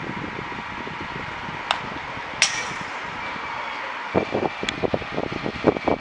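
Outdoor baseball game sound over a steady hum: two sharp cracks of a baseball impact about a second and a half and two and a half seconds in, the second louder with a brief ringing tail, and a smaller crack near the end. From about four seconds in, irregular low thumps buffet the microphone.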